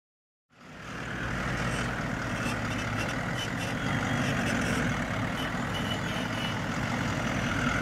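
4WD's engine idling steadily, starting about half a second in.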